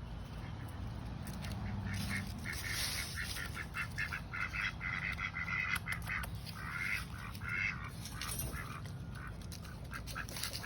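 Ducks quacking in a fast run of short, repeated calls.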